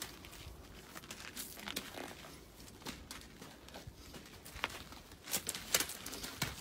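Crunching, scuffing steps on dry gravelly, straw-strewn ground as a Shetland pony's hooves shuffle about, with a few sharp clicks.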